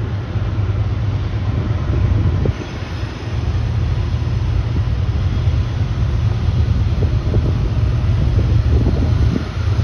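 Diesel locomotives at the head of a CSX coal train approaching: a steady low engine rumble that dips briefly about two and a half seconds in.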